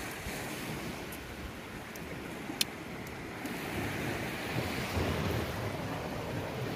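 Steady wash of sea surf with wind noise on the microphone, and a single sharp click about two and a half seconds in.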